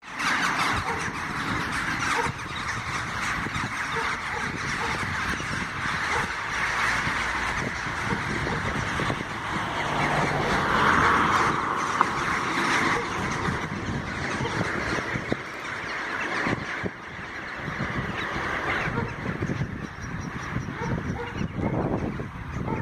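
A large flock of rooks cawing together in a dense, continuous chorus, fullest about halfway through and thinning over the last few seconds.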